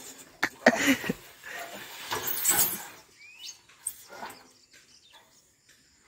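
Scattered knocks and rustling of a person clambering down a bamboo pole frame, busiest in the first three seconds.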